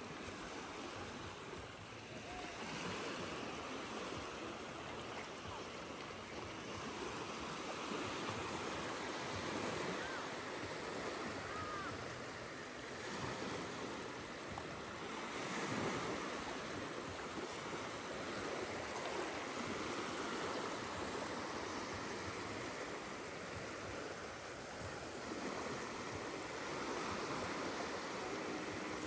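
Small waves washing up a sandy beach and draining back, a steady surf hiss that swells and eases every few seconds.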